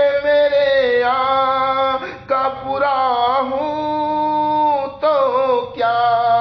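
A single voice singing an Urdu naat, drawing out long notes that bend and glide between pitches, with short breaks between phrases.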